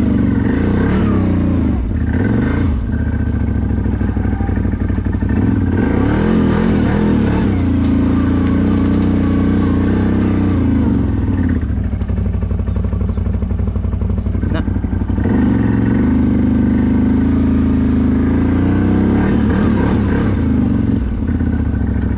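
CFMoto CForce 1000 ATV's V-twin engine running under way, the revs rising and falling over and over as the throttle is worked. It eases off about twelve seconds in and picks up again some three seconds later.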